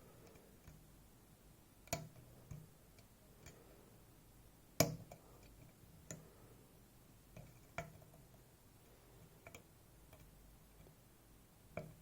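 Sparse, irregular light clicks and taps of a lock pick working the pins of a Goal Z 7-pin cylinder under tension, as pins are pushed and set. The loudest click comes a little under five seconds in.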